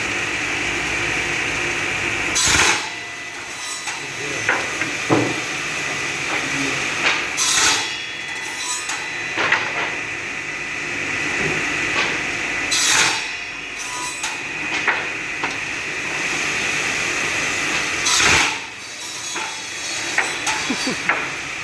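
Automatic two-blade wood-cutting machine running steadily, with four loud harsh bursts about five seconds apart and lighter wooden knocks and clicks in between.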